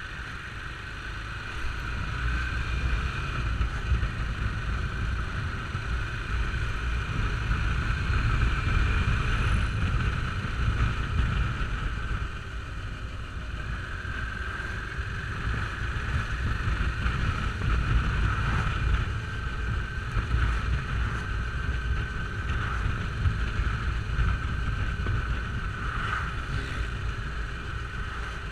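Wind buffeting the microphone of a camera on a motorcycle at road speed, over the steady running of the bike's engine.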